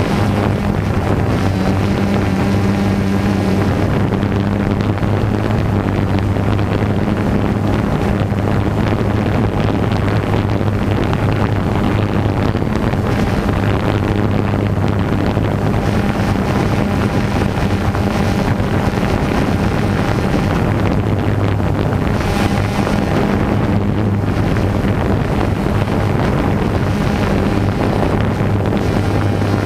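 DJI Phantom 2 quadcopter's motors and propellers buzzing at a steady pitch, heard through its onboard GoPro, with wind noise on the microphone.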